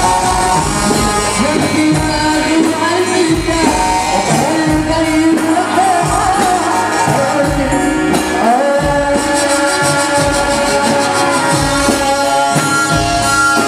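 Live Arabic wedding band: a young male voice sings into a microphone over keyboard and a steady heavy drum beat. About nine seconds in, the singing gives way to one long held melody note.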